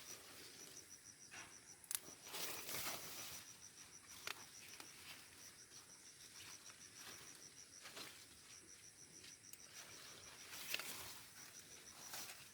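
Faint insect chirping in a steady run of high, evenly spaced pulses, with a few brief louder noises, one about two seconds in and another near the end.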